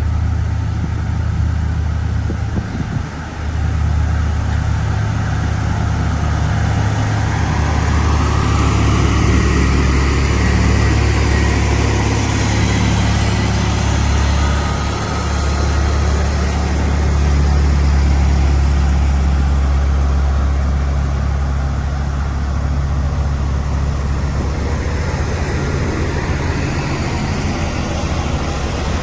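Motor grader's diesel engine running steadily under load, with a hiss over it that swells and fades as it works the loose stone.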